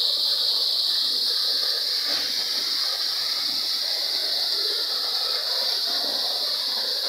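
Waterfall pouring down onto rock, a steady hiss of falling water and spray.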